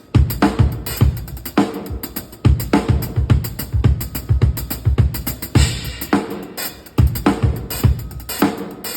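Drum kit being played, with bass drum and snare hits in a steady beat of sharp strikes.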